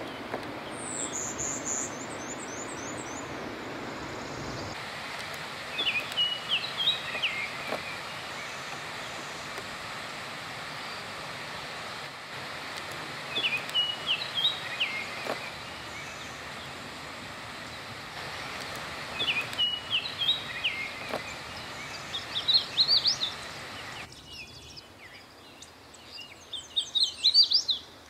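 Male Baltimore oriole singing short whistled phrases, four of them a few seconds apart, over a steady background hiss. A brief high chatter comes in the first couple of seconds, and a different bird's high, quick song near the end.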